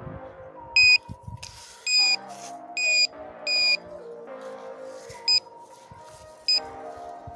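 GP-Pointer handheld metal-detecting pinpointer beeping six times, the beeps of uneven length, as it is swept over loose garden soil: it is signalling a metal target in the dug earth. Background music plays throughout.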